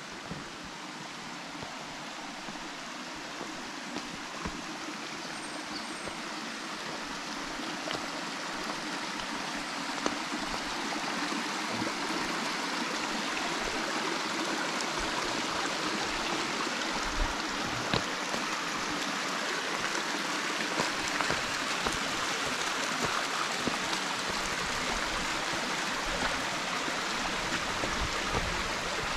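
Mountain stream rushing over rocks, a steady noise of running water that grows louder over the first ten seconds or so and then holds level.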